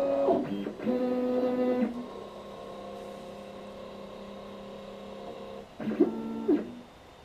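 MakerBot 3D printer's stepper motors running through moves: a pitched whine that slides up and down as each move starts and stops, louder twice in the first two seconds and again about six seconds in, with a quieter steady tone in between. This is the noise the owner calls grinding.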